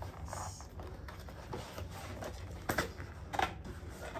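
Cardboard packaging being handled and pulled: scraping, rubbing and small taps as a tight-fitting box is worked out of its outer packaging, with two sharper knocks near the end.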